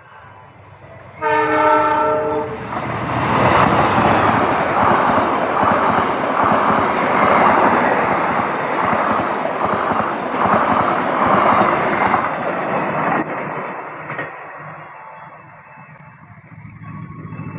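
A train horn sounds once for about a second and a half. The train then passes close by at speed, its wheels clattering over the rail joints in a regular beat for about ten seconds before the noise fades away. Near the end the rumble of rail noise begins to rise again.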